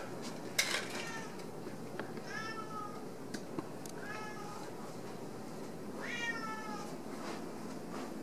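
Domestic cat meowing: three short meows a couple of seconds apart. A brief sharp knock comes about half a second in.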